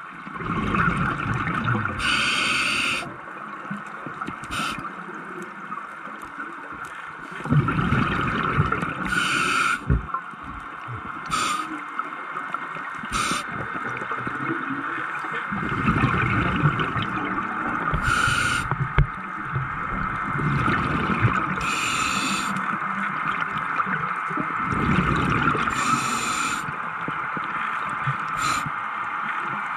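Scuba regulator breathing underwater: short hissing inhalations every few seconds and longer rumbling bursts of exhaled bubbles, which are the loudest sound. A steady faint high hum runs underneath.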